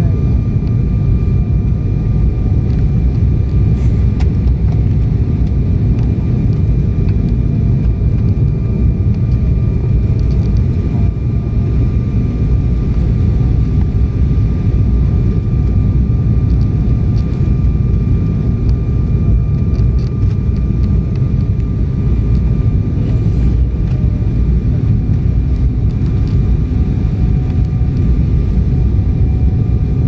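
Steady cabin roar of a jet airliner in flight: engine and airflow noise heard from inside the cabin, with a few faint steady whining tones above the low rumble.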